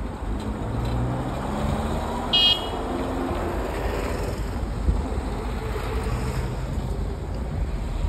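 Car driving along a road, with steady engine and tyre noise; the engine note rises briefly as it accelerates. A short car-horn toot sounds about two and a half seconds in.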